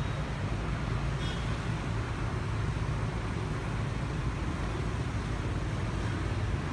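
Steady city street traffic noise from motorbikes and cars going by, a continuous low rumble, with a brief high chirp about a second in.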